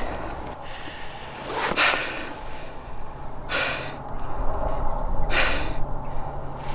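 A man breathing hard, with deep, audible breaths roughly every two seconds: winded with excitement just after shooting a deer.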